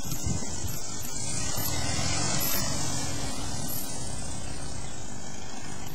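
Rand KR-2 light aircraft's engine and propeller running steadily at low taxiing power.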